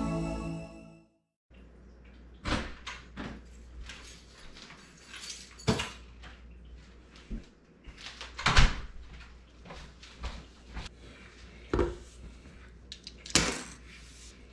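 Electronic intro music fading out in the first second. Then scattered knocks and clunks of things being handled and set down on a kitchen countertop, over a low steady hum; the loudest knock comes about eight and a half seconds in.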